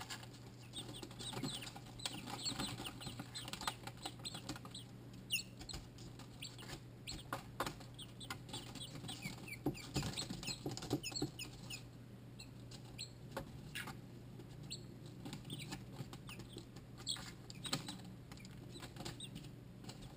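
Silkie chicks a few days old peeping, many short high chirps from several birds at once, mixed with light taps and scratching on the brooder floor.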